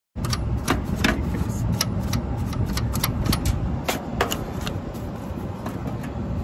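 Irregular sharp clicks and metallic taps from hand work on a commercial package air-conditioning unit, over a steady low rumble.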